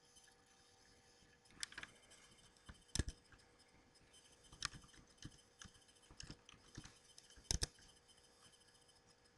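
Faint, irregular keystrokes on a computer keyboard: a dozen or so separate clicks, the loudest a sharp pair near the end, as a user ID and password are typed in.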